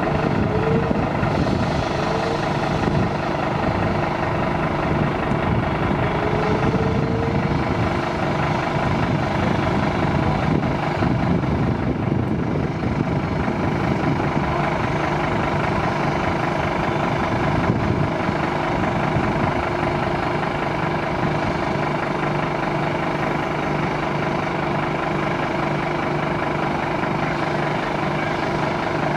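A large engine or machinery running steadily: a constant mechanical drone with several held tones that do not change.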